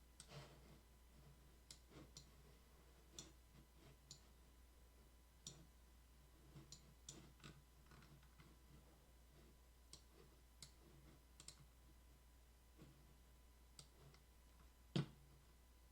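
Faint, irregular clicks of a computer mouse, a couple of dozen scattered through, with one sharper click near the end, over a low steady hum.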